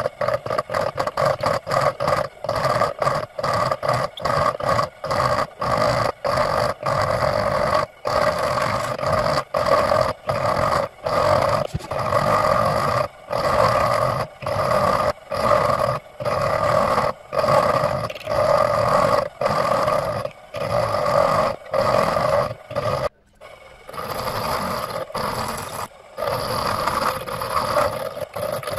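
Metal being worked by hand with a back-and-forth tool, a file or saw, in repeated strokes that ring with a steady tone. The strokes come quickly at first, then become longer and slower, about one a second, with a brief pause near the end.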